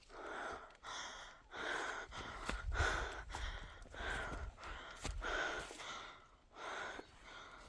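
A person breathing hard: about seven heavy, rasping breaths, roughly one a second.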